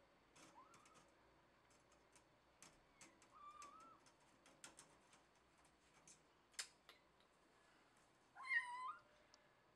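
A cat meowing a few times, short faint meows first and a louder meow near the end that wavers in pitch, with scattered faint clicks in between.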